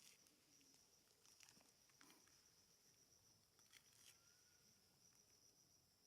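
Near silence, with a faint, steady, high-pitched insect chirring and a few faint clicks.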